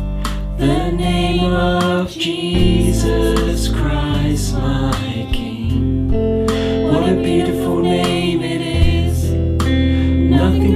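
Contemporary worship song: voices singing together over guitar and a deep bass line that moves from note to note.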